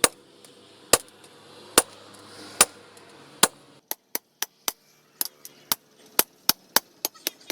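Repeated sharp strikes in work on an old knife blade: slow, heavy blows about one a second, then about four seconds in, a quicker run of lighter strikes, three to four a second.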